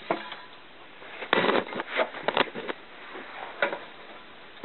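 A cluster of light clicks and knocks about a second and a half in, and another click near the end, as the street lamp's metal housing and glass refractor are handled while the refractor is being fitted back on.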